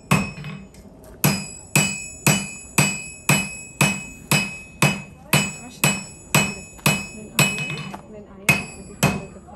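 Blacksmith's hammer striking iron on an anvil, about two blows a second, each blow ringing, with two brief pauses. The smith is forging an old horseshoe into a decorative heart.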